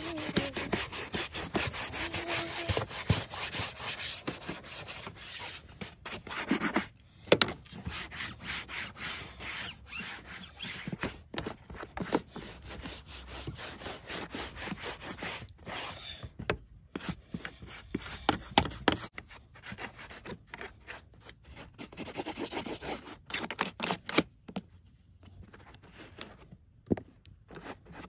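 Quick back-and-forth rubbing and scrubbing of a damp cloth on a minivan's plastic door-sill trim, a scratchy sound that stops briefly a few times.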